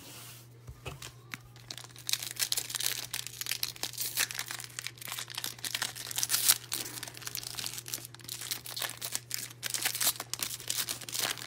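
Trading-card pack wrappers being torn open and crinkled, in quick irregular crackles that start about two seconds in.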